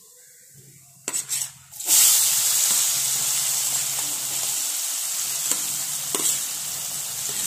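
Chopped onions dropped into hot spiced oil in a wok. After a quiet first second and a few light clicks, a sudden loud sizzle starts about two seconds in and carries on as a steady frying hiss, with an occasional click of the spoon.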